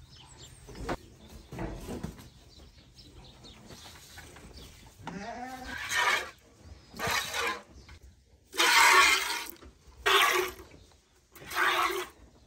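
Hand-milking a cow: spurts of milk hissing into a plastic bucket, five loud bursts about a second and a half apart. A short animal call comes just before the first spurt, about five seconds in.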